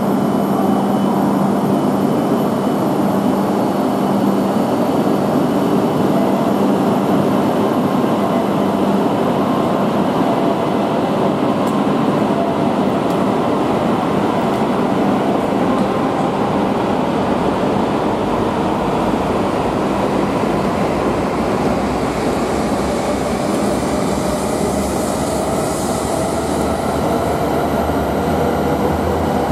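Hayabusa shinkansen train running along the platform: a loud, steady rush of wheels and air, with an electric motor whine that rises in pitch near the end.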